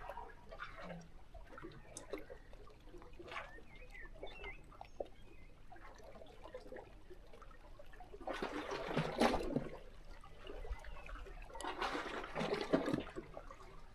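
Small sea waves lapping and sloshing against shore rocks. Two larger washes of water come in the second half, each lasting about two seconds, with lighter trickling and crackling in between.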